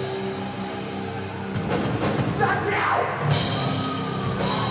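Live rock band with electric guitars, bass and drum kit: a chord is held and rings for about a second and a half, then the band comes in louder with drums, shouted voices and two cymbal crashes near the end.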